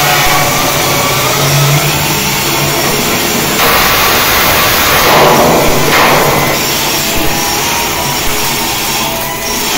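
Flux-cored arc welding: the arc crackling and sizzling continuously as a bead is run on steel, denser and louder from about three and a half to six and a half seconds in.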